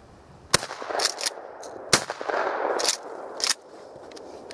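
Two shotgun shots from a pump-action shotgun about a second and a half apart, each followed by sharp clacks as the pump action is worked.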